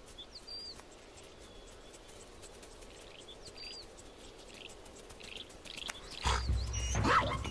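Small birds chirping, short repeated calls over faint outdoor hiss. About six seconds in, a louder stretch of low rumbling starts, with a pitched animal call near the end.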